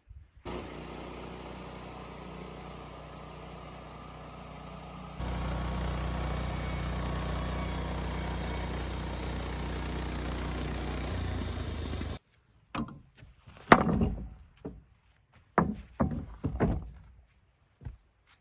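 Woodmizer LT15 Start portable band sawmill running steadily through a cedar cant, its motor's even hum under the hiss of the blade, jumping louder at about five seconds and cutting off abruptly at about twelve seconds. Then a scatter of sharp wooden knocks and thuds.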